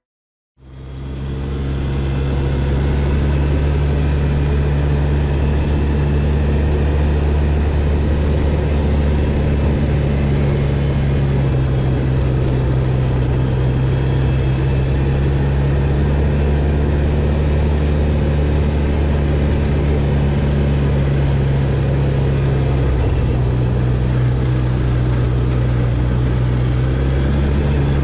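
A quad (ATV) engine runs steadily under load on a dirt trail, heard from on board as a loud, even low drone with road and wind noise over it. It fades in about half a second in.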